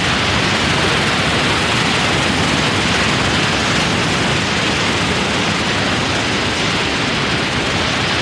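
Whitewater rapids rushing over rock ledges in a river: a loud, steady rush of falling water.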